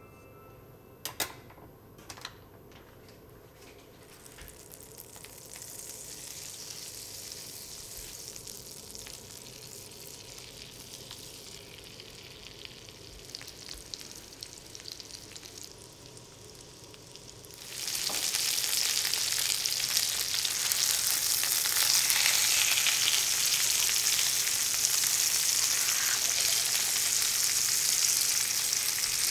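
Floured chicken thighs frying in olive oil and butter in a nonstick frying pan, a steady sizzle. There are two light knocks near the start as the butter goes in, then a gentle sizzle builds, and about two-thirds of the way through it turns much louder as the thighs brown.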